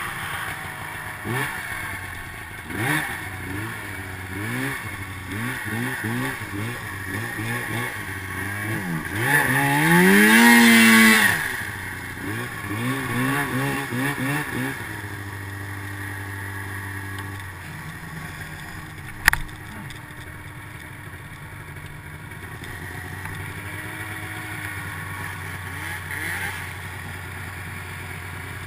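Snowmobile engine revving up and down over and over as the sled is ridden through snow, with one long high rev about ten seconds in. From about fifteen seconds in it settles to a steadier, lower running, with a single sharp click a few seconds later.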